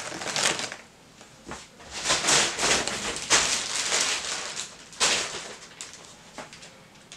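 Plastic packaging of frozen food crinkling and rustling in bouts as the bags are handled and set down, fading near the end.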